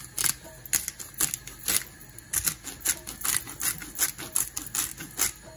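Hand-twisted pepper mill grinding black pepper, a crunching click with each twist of the head, about two to three strokes a second.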